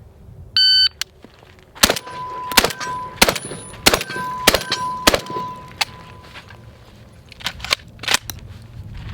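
A short electronic beep, like a shot timer, then a rapid string of Benelli M4 12-gauge semi-automatic shotgun shots about two-thirds of a second apart. Steel targets ring after the hits. A few more scattered shots or impacts come near the end.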